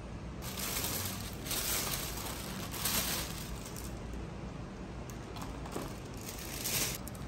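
Thin plastic carrier bag rustling and crinkling as a drink can and a takeout box are pulled out of it, in several short bursts.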